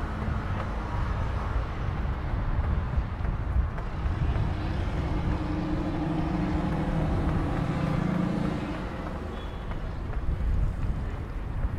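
Street ambience of city traffic: a steady low rumble, with a vehicle engine hum swelling about four seconds in and fading out near nine seconds.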